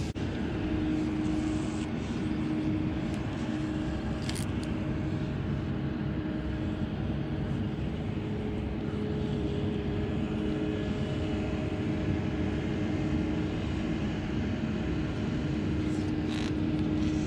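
A distant engine drones steadily with a faint hum, over low outdoor background noise; a couple of light clicks come about four seconds in and again near the end.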